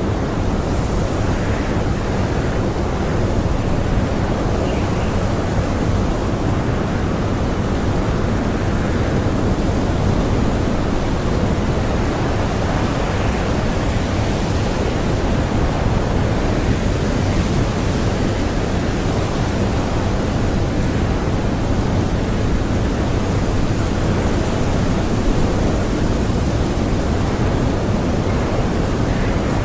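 Blizzard wind blowing hard and steadily, a dense rushing noise heaviest at the low end, with no breaks.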